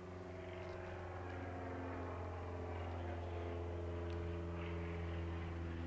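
Steady low mechanical hum with a few even overtones, growing slowly louder.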